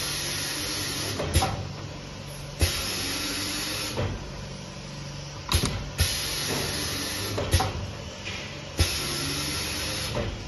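A small cardboard die-cutting and grooving machine for rigid-box board working through its cycles: about six sharp knocks, several of them followed by a steady hiss lasting a second or so.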